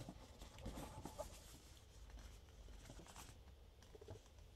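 Faint rustling and crinkling of a folded paper poster being handled and opened out, in two short spells.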